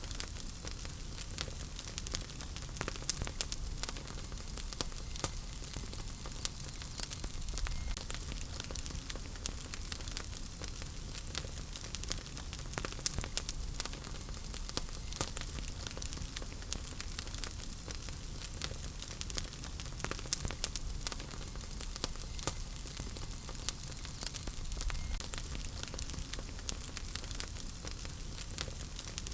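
Wood fire burning in a fireplace, crackling with frequent sharp pops and snaps over a steady hiss and low rumble of the flames.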